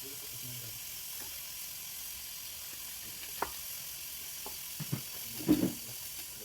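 Fish frying in hot oil in a pan, a steady sizzle. A few short knocks come in the second half, the loudest about five and a half seconds in.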